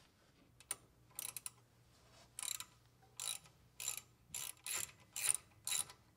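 Hand ratchet with a socket clicking as it is swung back and forth to unscrew a brake caliper slide pin bolt. A few single clicks come first, then a run of quick ratcheting strokes, about two a second.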